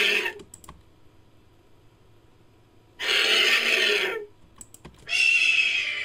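Made-up Pterodactylus call sound effect built from vulture noises: harsh, raspy hissing screeches. One ends just after the start, a second lasting over a second comes about three seconds in, and a third starts about five seconds in with a thin high screeching tone running through it.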